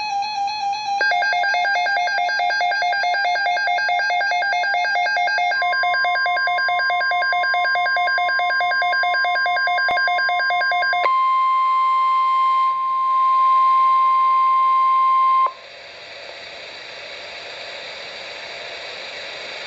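NOAA Weather Radio alert tones. Rapidly pulsing electronic beeps at several pitches run for the first ten seconds or so. Under them, about six seconds in, the steady 1050 Hz warning alarm tone starts; it carries on alone, cuts off suddenly about three-quarters of the way through, and leaves faint radio hiss.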